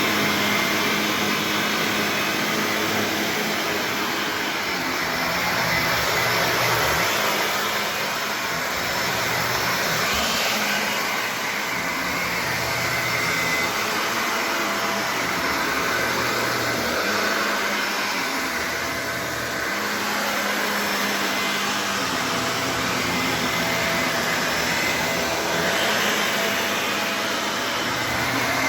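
Shark Navigator Lift-Away upright vacuum running on its carpet setting over a shag rug, a steady motor and airflow noise with a brush roll. The sound swells and eases every few seconds as the vacuum is pushed back and forth.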